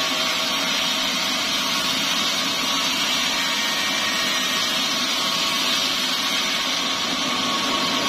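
Sawmill band saw running steadily: a continuous mechanical drone with a few faint steady tones and no breaks.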